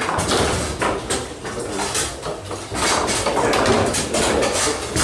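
Tornado foosball table in play: a rapid, irregular run of hard clacks and knocks as the ball is struck by the figures and hits the walls, and the steel rods are shoved and spun against their stops.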